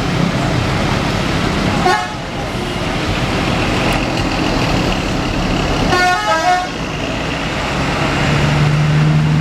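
Bus horns sound two short blasts, about two seconds in and again about six seconds in, the second with several shifting notes in the manner of a multi-tone telolet horn, over the steady rumble of bus engines. A low steady hum comes in near the end.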